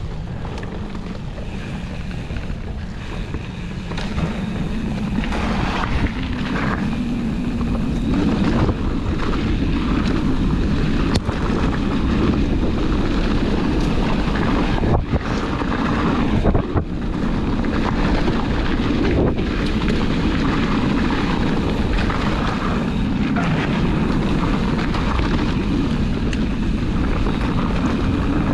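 Steady rush of wind on the microphone and rumble of a bike riding down a dirt trail, with a few sharp knocks from bumps along the way.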